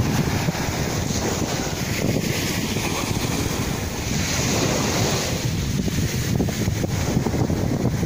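Small sea waves washing onto a sandy shore, with wind buffeting the microphone in a steady, gusty rumble.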